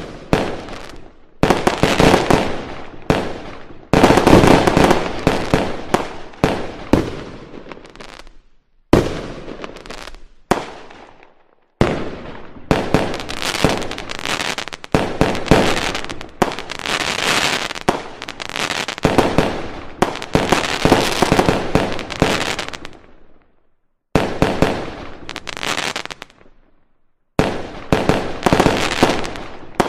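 Fireworks display: dense volleys of bangs and crackling, broken by a few abrupt short silences.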